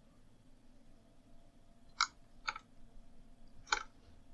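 Three separate clicks of computer keys: one about two seconds in, another half a second later, and a third near the end, over a faint steady hum.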